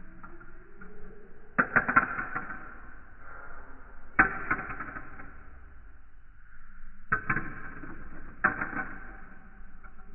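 Sharp clacks with brief ringing as marbles knock through a Duplo-block marble run, about six hits in clusters a few seconds apart.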